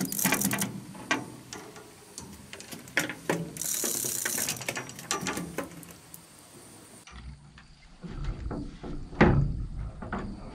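Fishing reel clicking rapidly, a ratcheting run of sharp ticks with a short hiss partway through. After a cut, heavy thumps of footsteps and movement on a boat's deck.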